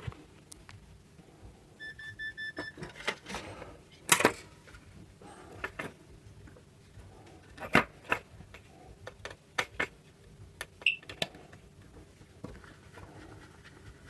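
Scattered clicks and knocks of hands handling the opened insect zapper's plastic casing and circuit board, the sharpest about four and eight seconds in. About two seconds in comes a short beeping tone lasting under a second.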